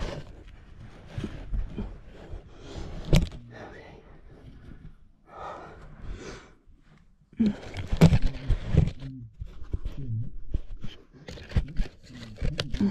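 A person squirming through a tight cave squeeze: irregular scraping and shuffling of body and clothing against rock and dirt, with effortful breaths and wordless grunts, and a couple of sharp knocks.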